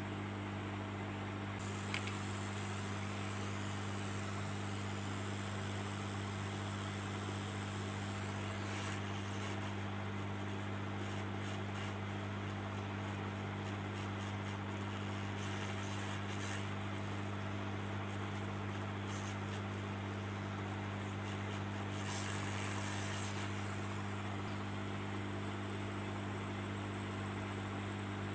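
Hot air gun blowing steadily with a low hum and airflow hiss as it heats solder to fit a small diode onto a TV panel's circuit board. A single click comes about two seconds in, and the hiss changes in tone a few times.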